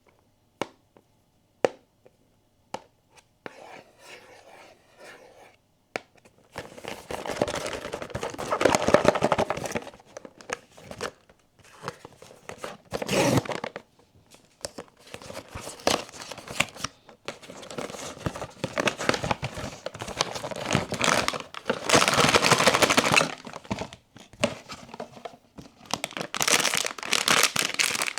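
A few sharp taps on packaging, then long bursts of tearing and crinkling as a blind box and its wrapping are torn open.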